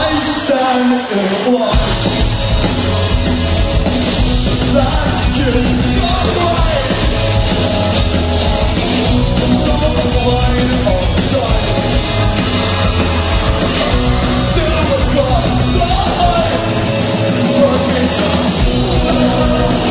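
Loud rock music with singing, the bass dropping out for a moment about a second in.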